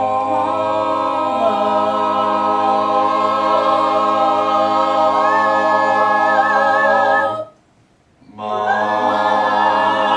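Several voices singing an a cappella chord in close harmony, each holding its own steady note, with parts shifting pitch a little as it goes and a high note entering about five seconds in. The chord stops about seven and a half seconds in, and after a short silence a second held chord starts.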